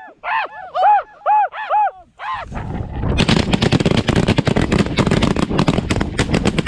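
Snow goose calls, a high yelping repeated about every half second. About two seconds in, a volley of rapid, overlapping shotgun fire from several hunters breaks out and keeps going.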